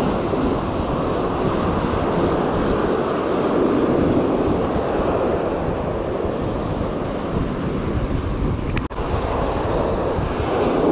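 Ocean surf breaking and washing up the sand close by, a steady rushing wash, with wind buffeting the microphone. The sound drops out for an instant about nine seconds in.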